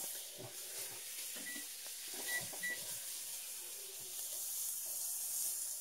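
Swordfish steak sizzling on a hot cast-iron griddle, a steady faint hiss. About a second and a half in come three short electronic beeps from the electric stove's control-panel buttons as the timer is set.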